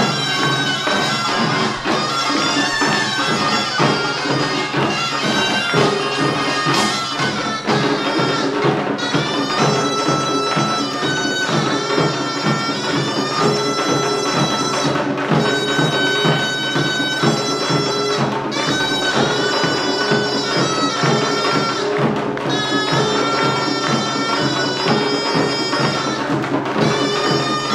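Korean pungmul farmers'-band music: a loud, nasal reed melody in held notes, typical of a taepyeongso shawm, over a quick, steady beat of drums and gongs.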